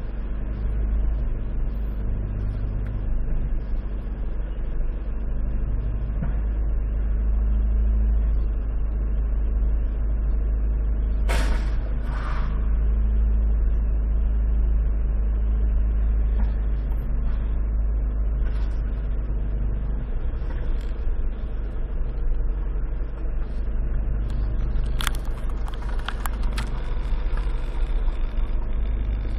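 Car engine running steadily, heard from inside the cabin as a constant low rumble, with a couple of sharp clicks about eleven seconds in and a few more near the end.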